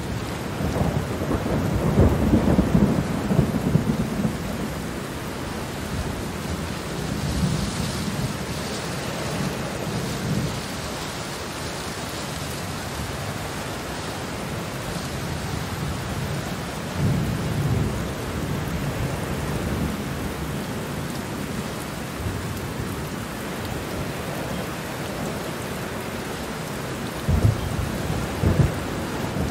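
Steady rain falling with thunder rumbling through it: a long rumble about two seconds in, further rolls around eight and seventeen seconds, and two sharper thunder peaks near the end.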